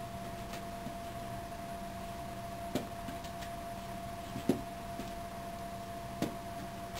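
Steady faint hum of room tone, broken by three short soft thumps, the loudest near the middle, as a Savannah kitten leaps after a feather toy and lands on the carpet.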